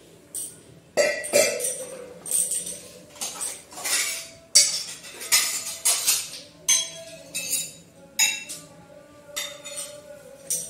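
Small metal puja cups and vessels clinking against each other and the tiled shrine step as they are set down one after another. It is a long string of sharp clinks about every half second, each with a short metallic ring.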